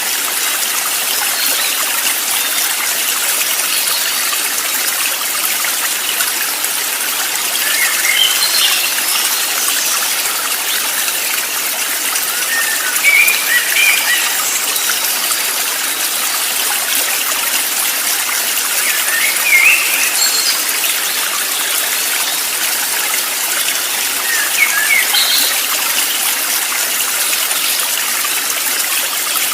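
Steady rushing of flowing water, a constant hiss, with short bird chirps breaking through about four times.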